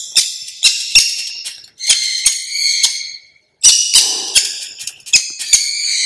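A parrot giving a run of harsh, repeated squawking calls while it is syringe-fed hand-feeding formula, with short sharp clicks in between. The calls break off briefly a little past halfway, then start again.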